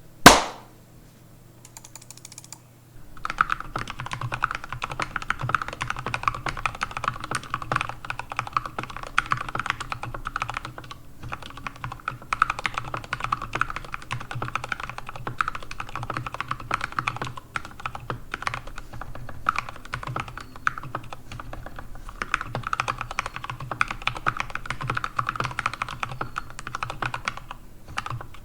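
Typing on a GK61XS mechanical keyboard with lubed Gateron Yellow linear switches: rapid, continuous keystrokes starting about three seconds in, after a single sharp knock at the very start.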